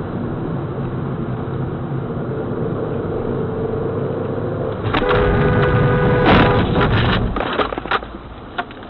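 Vehicle running with steady road noise and a slowly rising engine note, then about five seconds in a sudden loud held tone, like a horn or tyre squeal, and a car crash: a sharp impact followed by a couple of seconds of scattered clattering knocks that die away.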